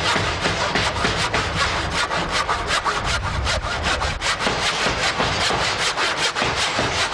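Handsaw cutting through a thin wooden plank in quick, even back-and-forth strokes.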